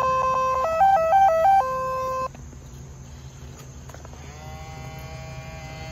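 Tertill weeding robot playing its electronic start-up tune: a couple of seconds of loud stepped beeps, alternating two tones and then running up and down a short melody before one held note. About four seconds in, a quieter motor whine starts, rising briefly and then holding as the robot sets off.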